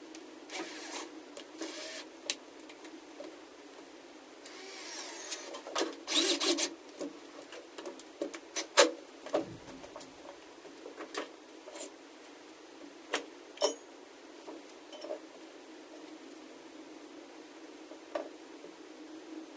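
Scattered clicks and knocks of parts and tools being handled while a battery module is reassembled, with a short scraping stretch about five seconds in and a sharp click about nine seconds in. A steady low hum runs underneath.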